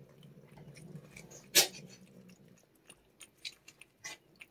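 Cat licking a paste treat from a squeeze tube, with wet smacking and small lapping clicks and one sharper click about one and a half seconds in.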